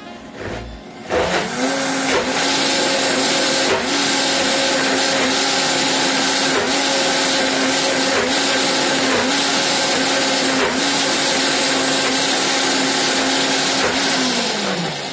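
KitchenAid K400 blender's 1200-watt motor blending a thick hummus paste: it starts about a second in, quickly comes up to a steady high speed with an even whine, then winds down in pitch near the end as it is switched off.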